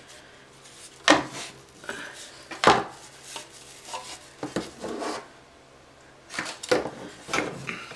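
Two flat wooden ice-skate cutouts being handled and fitted together: about half a dozen sharp clacks as they knock against each other and the cutting mat, with light scraping between them.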